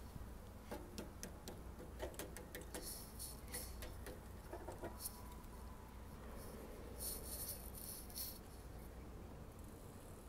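Scattered light clicks and rattling from a bicycle being handled close to the microphone, with a few short hissy rattles, over a steady low rumble.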